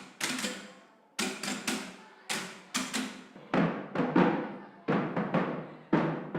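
Kalimba (thumb piano) being played: small groups of plucked notes in an uneven rhythm, each with a sharp attack and a ringing tone that fades away.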